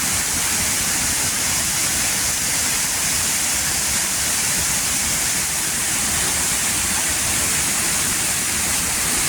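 Waterfall: a steady, unbroken rush of falling water, strongest in its high hiss.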